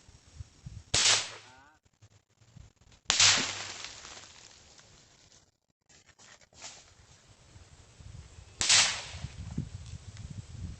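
Three sharp shots from nail gun cartridges being fired, spaced several seconds apart. The middle one is the loudest, and each dies away over a fraction of a second to about a second.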